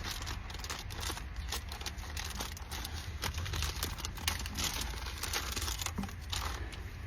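Packaging of a new car cabin air filter being crinkled and torn open, a dense run of irregular crackles and rustles.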